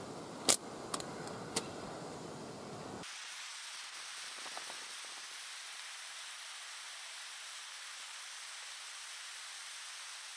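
Small gas canister camp stove burner hissing steadily under a pot of water heating to the boil. A sharp click about half a second in, then two fainter clicks; about three seconds in the deeper part of the sound drops away abruptly, leaving a thinner hiss.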